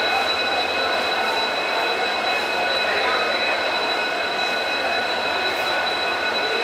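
Steady running noise of a train standing at a station platform, with a continuous high-pitched whine over it.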